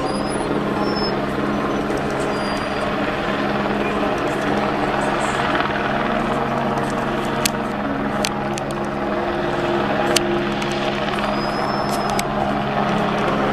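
Light helicopter flying slowly while towing a stringing line, its engine and rotor giving a steady drone with a constant low hum. A few sharp clicks come in the second half.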